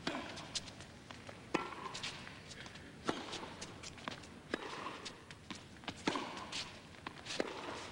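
Tennis rally: racket strikes on the ball about every one and a half seconds, six in all, with lighter clicks of ball bounces and players' footsteps on the court between them.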